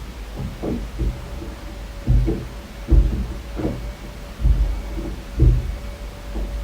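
Dull, deep thuds carried through the building from a neighbour's flat, irregular and roughly one a second, over a low rumble with a faint steady hum. The uploader takes them for the neighbour banging a vacuum cleaner about while vacuuming.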